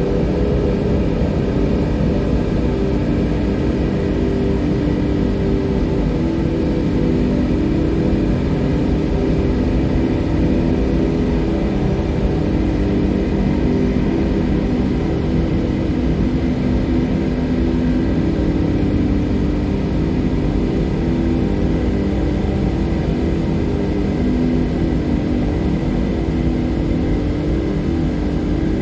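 Ambient music: a slow, sustained drone of held low tones over a steady rumble, with no beat or distinct notes.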